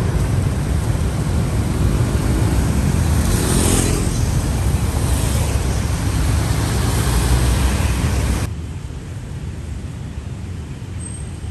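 Street traffic on a wet road: cars and motorbikes passing, with one vehicle hissing past close by about three to four seconds in. About eight seconds in the traffic cuts off abruptly to a quieter steady background hiss.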